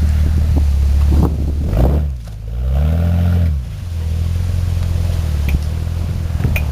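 2001 Jeep Grand Cherokee engine running at low revs while crawling offroad. About two seconds in it dips, then briefly revs up and back down before settling again, with a few scattered knocks and clicks.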